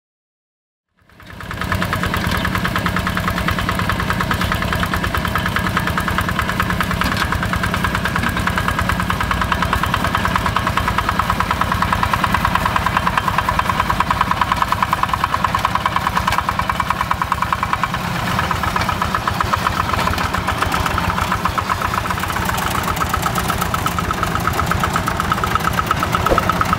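Single-cylinder Yanmar TF85 diesel engine of a walking hand tractor running steadily under load while plowing a rice paddy, with a rapid, even chugging beat. It cuts in about a second in, after a brief silence.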